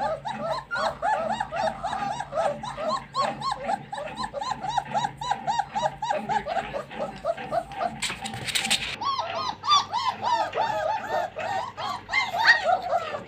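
A litter of German shepherd puppies whining and yelping together: many short, high cries that rise and fall, overlapping several a second. There is a brief rustle about eight seconds in.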